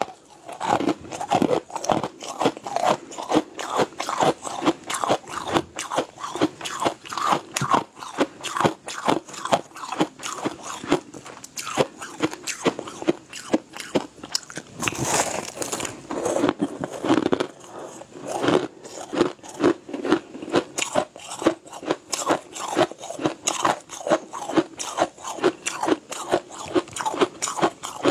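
Close-up crunching and chewing of powdery ice, packed by hand into balls: repeated crisp bites, a few a second.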